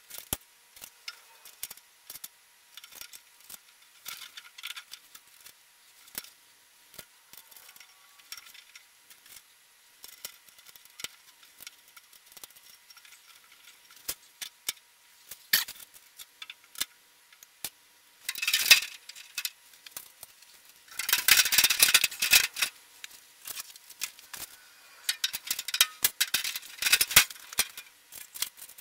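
Sped-up assembly sounds of a sheet-metal blast cabinet, high-pitched from the speed-up: rapid clicks, clinks and rattles of small hardware and panels, with a few louder noisy bursts about two-thirds of the way through and near the end.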